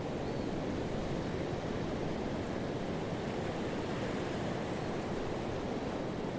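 Ocean surf washing onto a sandy beach: a steady, even rush of breaking waves and foam, with no single crash standing out.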